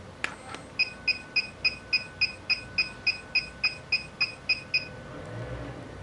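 HIFU face-lifting machine firing a line of ultrasound pulses through its handpiece, giving a short high beep with each shot: about fifteen even beeps, roughly three and a half a second, after a single click just before the first.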